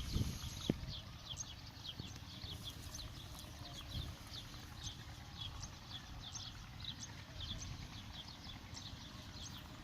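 Birds chirping: many short, high, downward-sliding chirps, several a second, over a steady low rumble.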